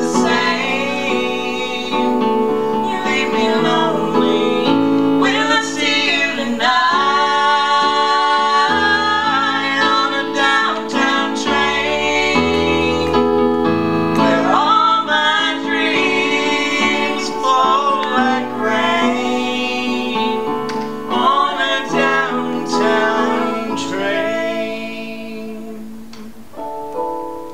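Live song: a woman singing with a man, over instrumental accompaniment, the music quieting near the end.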